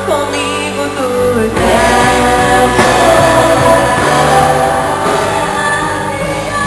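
A live worship band rehearsing: several voices singing together over the band's instruments. The fuller band sound, with bass and drums, swells in about a second and a half in.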